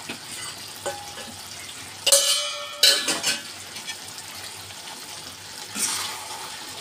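Chicken and spices frying in an aluminium kadai with a steady low sizzle. About two seconds in, a metal utensil clanks against metal and rings briefly, with a second knock just after. Near the end there is a short rustling scrape as the pan is handled.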